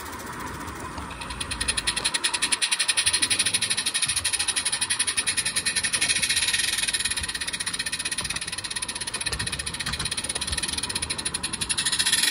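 A 16mm-scale Roundhouse live-steam model of a Vale of Rheidol locomotive chuffing as it runs under steam, a fast, even beat of exhaust puffs that grows louder about a second and a half in.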